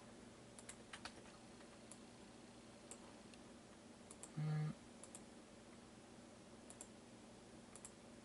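Faint, scattered clicks of a computer mouse and keyboard, several in quick pairs. About halfway through comes a short low buzzy tone, the loudest sound.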